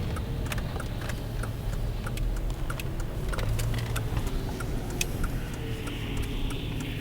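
Semi-truck diesel engines idling with a steady low rumble, with scattered sharp ticks throughout.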